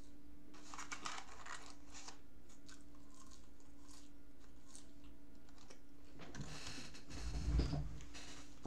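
Crinkling of a paper McDonald's fry carton as fries are picked out and eaten, with small clicks and handling noises. Near the end, louder rustling and a dull thump as the body shifts forward in the chair.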